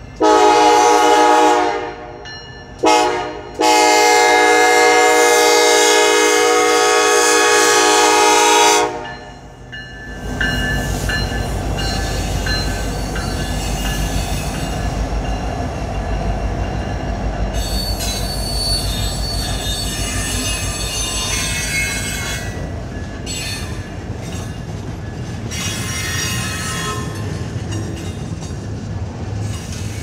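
CN freight locomotive's air horn sounding a crossing signal: a long blast, a short one, then a long one held about five seconds. The train then passes close by, with a steady low rumble of the locomotives and rolling freight cars and high wheel squeal at times.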